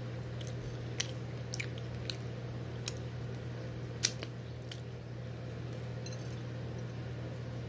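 Mouth sounds of eating: a finger licked and a bite of bagel with chocolate hummus chewed, with scattered sharp lip smacks and clicks, the loudest about four seconds in, over a steady low hum.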